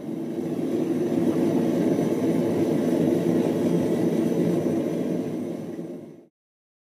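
Homemade propane forge burner (a .035 MIG-tip jet feeding a 3/4-inch black-pipe tube) running with the forge lit: a steady, low, rushing roar that cuts off suddenly near the end.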